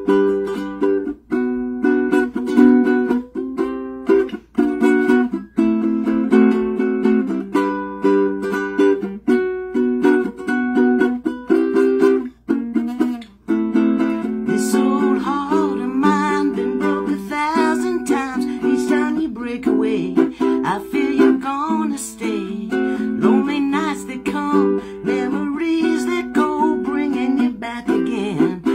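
Ukulele strummed in a fast, steady rhythm as a song's introduction. About halfway through, a woman's singing voice comes in over the strumming.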